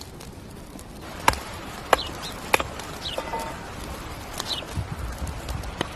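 Outdoor ambience with birds giving several short chirps over a steady background hiss, broken by four sharp knocks.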